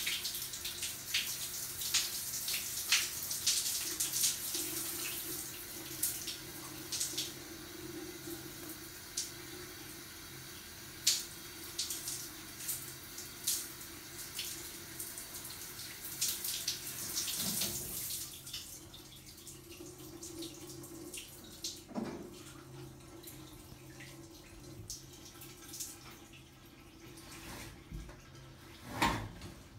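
Shower running: water spraying from an overhead shower head and spattering on a person and the tiles. About two-thirds of the way through the spray stops, leaving scattered drips and small knocks, with a dull thump near the end.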